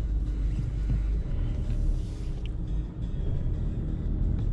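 Background music over the low, steady rumble of a car moving slowly in traffic.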